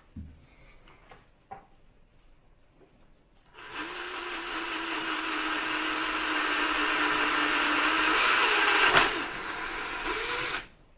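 Ryobi cordless drill running steadily with a small bit drilling into a motorcycle handlebar. It starts a few seconds in, is loudest about nine seconds in, runs briefly quieter and then stops just before the end. A few light knocks come before it starts.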